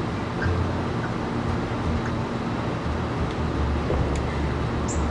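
Steady low rumbling background noise, with a few faint small clicks.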